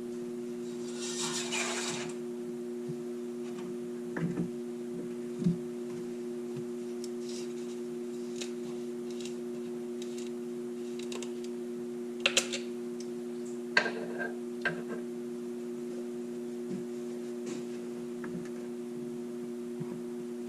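A steady low hum of two tones, with scattered light clicks and knocks from handling and a brief rustle about a second in.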